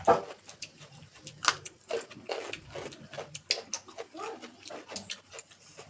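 Eating sounds: chewing and wet lip-smacking over rice and paneer masala, many short irregular clicks, with a brief murmur or two.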